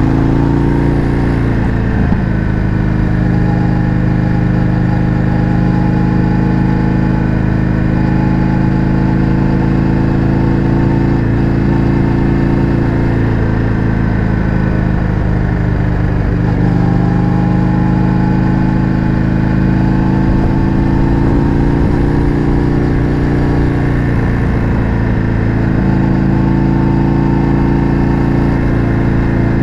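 Indian FTR 1200's V-twin engine through an Akrapovič exhaust, running steadily at cruising speed. The pitch dips briefly about two seconds in and again about halfway through.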